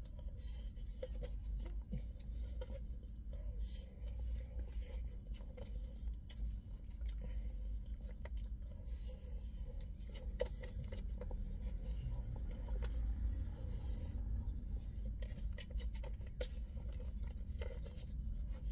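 A spoon scraping and clicking against a takeaway food container as someone eats rice and chicken, many small irregular scrapes and taps over a low steady rumble.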